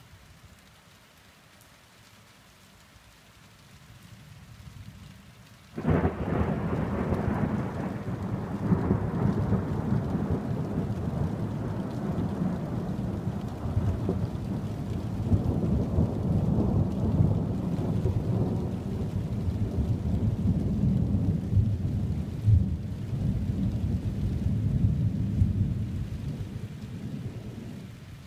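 Steady rain, then about six seconds in a sudden sharp crack of thunder that turns into a long rolling rumble of thunder, fading away near the end.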